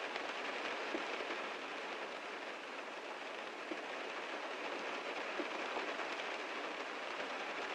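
Heavy rain falling on a car, a steady dense patter with a few louder single drops tapping now and then.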